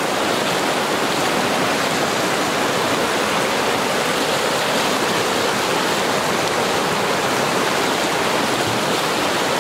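Fast river water rushing over rapids: a steady, unbroken whitewater noise.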